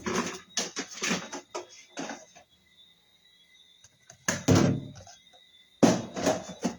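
Kitchen clatter of pots and utensils: a cluster of knocks and clinks, a second short burst near the middle and a third near the end, over a faint steady high-pitched whine.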